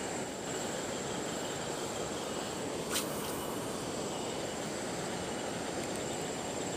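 Steady rushing of flowing river water, with a faint, thin high whine held throughout and one short click about three seconds in.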